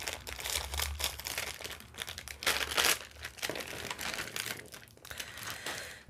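Foil snack packet crinkling in irregular bursts as it is cut open with scissors and handled, and a small plastic bag of balloons is pulled out of it. The loudest crinkle comes a little before halfway through.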